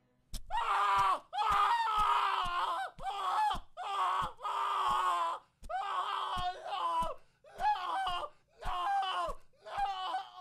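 A person screaming in terror: about nine short screams in a row, the pitch bending up and down in each, with brief gaps between them.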